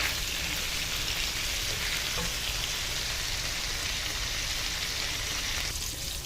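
Lamb loin chops sizzling in a pan of hot oil with butter, garlic and parsley: a steady frying hiss that weakens a little before the end.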